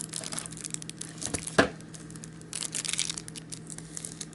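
Rustling and crinkling as a card game's deck and packaging are handled, with scattered light clicks, one sharp snap about one and a half seconds in, and a busier patch of crinkling near three seconds.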